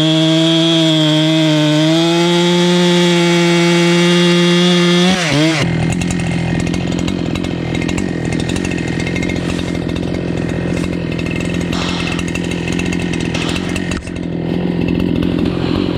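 Chainsaw cutting into an ash stump. It runs at high, steady revs, then about five seconds in the pitch drops sharply and the sound turns rougher and noisier for the rest.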